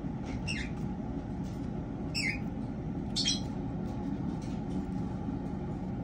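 Three short, high-pitched cheeps from a newly hatched cockatiel chick, the middle one falling in pitch, over a steady low background rumble.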